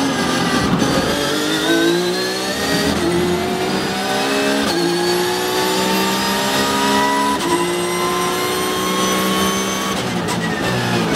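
Porsche 911 GT3 Cup car's flat-six engine at full throttle, heard from inside the cockpit, climbing in pitch through the gears with several quick upshifts, each one a sudden drop in pitch before it climbs again.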